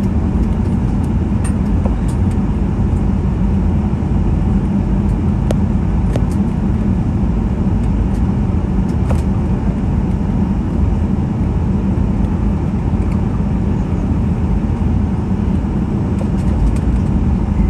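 Cabin noise of a Boeing 737-800 taxiing after landing: a steady low rumble from its CFM56-7B engines at taxi idle and the airframe rolling over taxiway concrete, with a few faint clicks.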